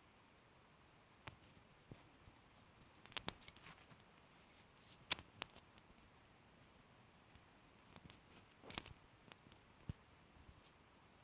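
Sparse, irregular faint clicks and short scratchy ticks, with the sharpest click about five seconds in and small clusters around three and nine seconds.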